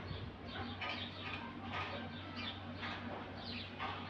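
Birds chirping: a run of short, high, falling chirps, several a second, over a steady low hum.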